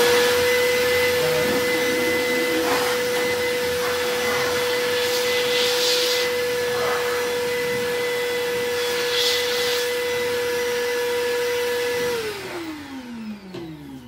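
Vacmaster 2.5-gallon, 2 HP wet/dry shop vacuum running as a blower: a steady motor whine over rushing air, with the air rush swelling twice. The motor is switched off about 12 seconds in and winds down with a falling whine.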